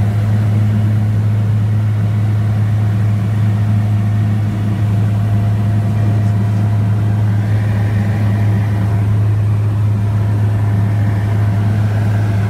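Light ski plane's engine and propeller droning steadily, heard from inside the cabin in flight, with a strong low hum.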